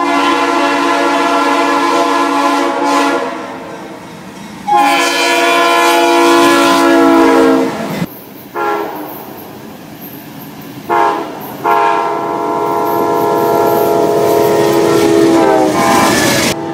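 Diesel locomotive air horns sounding a multi-note chord in long blasts and short toots: two long blasts, the second dipping in pitch as it ends, then after an abrupt cut a few short toots and a long blast of about five seconds. Between the blasts the train's wheels run on the rails.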